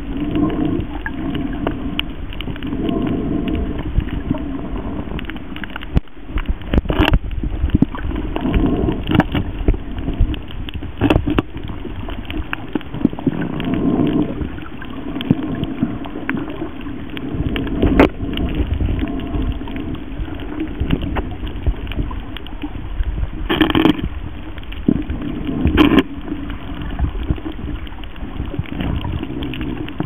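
Underwater reef ambience: a steady low rumble that swells and fades every few seconds, with scattered sharp clicks and crackles throughout.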